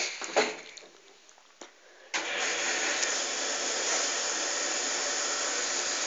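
AEG 640 front-loading washing machine starting to fill: after a couple of faint knocks, the water inlet opens suddenly about two seconds in and water rushes steadily into the machine through the detergent drawer for the prewash.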